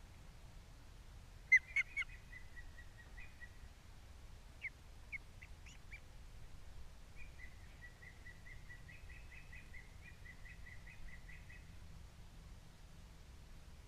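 Osprey calls, a series of high whistled chirps. A few sharp, loud notes come about a second and a half in, then scattered single chirps, then a long run of quick, evenly repeated chirps.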